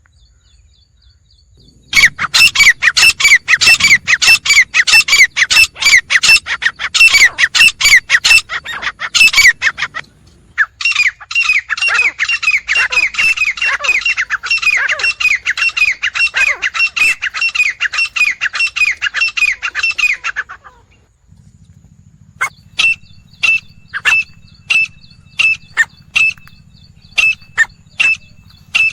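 Grey francolin calling: a long run of loud, harsh, rapidly repeated notes, broken off around ten seconds in, then a second run that stops about twenty seconds in. Near the end comes a slower series of spaced single notes.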